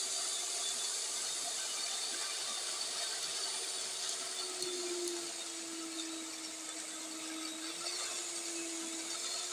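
Electric stand mixer with a rotating bowl running steadily at its top speed, setting five, its whisks turning in the ingredients. It makes a constant motor hum whose pitch dips slightly about five seconds in and then holds.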